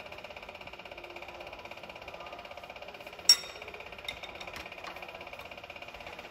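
A sharp metallic clank about three seconds in, then a few lighter clinks, as a steel open-end wrench is handled against the diesel injection pump and its fuel lines, over a steady pulsing mechanical hum.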